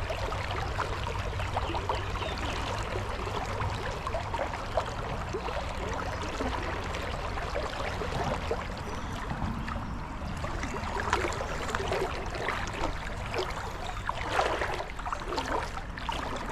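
Creek water running over rocks, a steady babbling rush, with a few louder splashes in the water in the second half.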